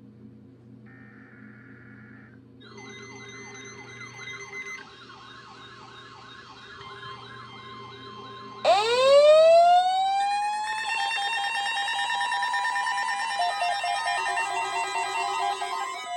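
A NOAA Weather Radio SAME data burst, a short buzzy warble, sets off weather alert receivers: first a warbling alarm over steady tones, then about 9 seconds in a loud siren that winds up in pitch, followed by several receivers beeping in overlapping pulses at different pitches.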